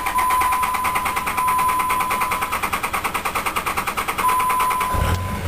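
Starter cranking a 5.9 Cummins diesel in rapid, even pulses about ten a second, with a steady high tone over it, until the engine catches about five seconds in and starts running with a low rumble. The long crank and rough start come from air being purged from the fuel line after a fuel filter change.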